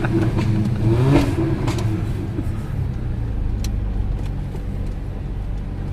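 Mercedes-AMG GLA 45's turbocharged four-cylinder engine running through an open aftermarket exhaust, a steady low drone that swells briefly about a second in, then settles to an even cruise.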